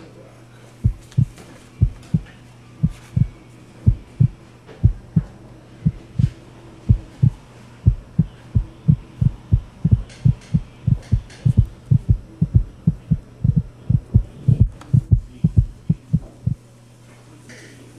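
Heartbeat sound effect: low paired thumps, about one beat a second at first and then quickening, stopping shortly before the end, over a steady low electrical hum.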